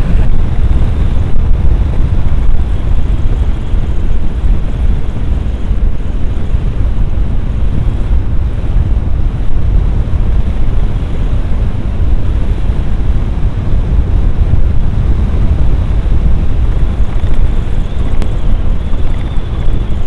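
Heavy wind buffeting on an action camera's microphone while riding, a loud, steady rumbling noise with no clear voices in it.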